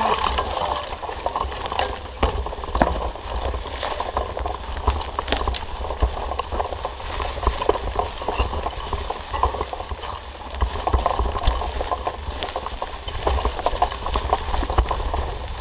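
Mountain bike rattling over a rough forest singletrack: a steady clatter of many small knocks and clicks from the bike and its tyres on dirt, roots and twigs, over a constant low rumble of wind on the camera microphone.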